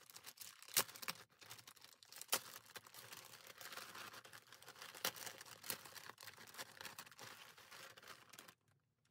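Plastic poly mailer crinkling and crackling as it is handled and opened, with a few sharper snaps of the plastic. The sound cuts off abruptly near the end.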